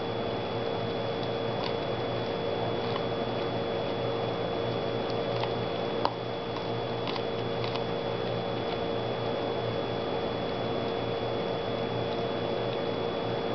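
A dog nibbling kernels off a corn cob: scattered soft clicks and crunches of teeth on the cob, one sharper click about six seconds in. A steady hum runs underneath.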